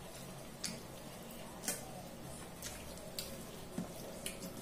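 Eating rice by hand from a steel plate: about six short, sharp clicks at irregular intervals as fingers mix and gather the rice, over a steady low hum.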